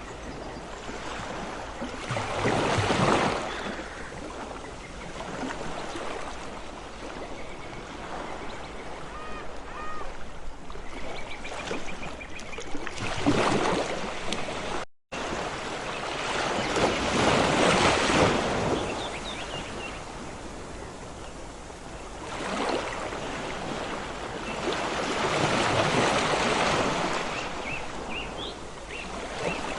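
Ocean waves breaking and washing on a shore, the surf swelling and falling back every few seconds. The sound cuts out for a split second about halfway through.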